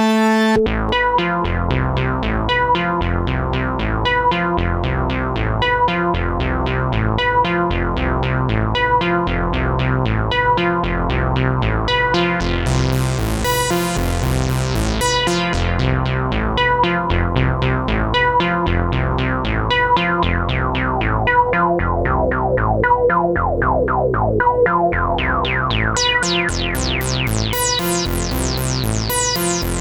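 Dreadbox Typhon monophonic analog synthesizer playing a factory preset: a held note cuts off about half a second in, then a fast repeating pattern of short notes runs over a pulsing bass. Its tone brightens sharply about twelve seconds in and again near the end as the filter opens.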